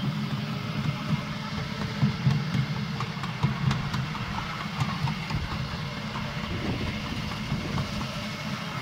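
Small ride-on miniature train running along its track: a steady low engine drone, with scattered clicks and knocks.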